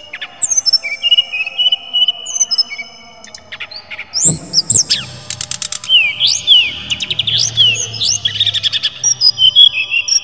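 Sikatan rimba dada coklat (SRDC) jungle flycatcher singing a varied song of clear, high whistles. Some notes are held level and others slide sharply up or down, with fast runs of repeated notes about seven to nine seconds in.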